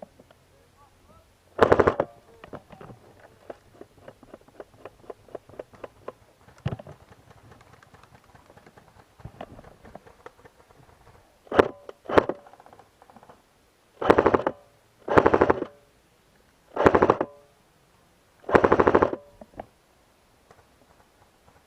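Airsoft gun firing short full-auto bursts, about seven in all, each under a second and made of rapid, evenly spaced shots, with pauses between them. Faint scattered ticks come between the first and second bursts.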